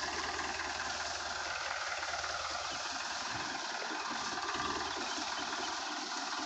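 Powertrac Euro 55 tractor's diesel engine running steadily under load as it hauls a fully loaded trolley over a rough dirt track.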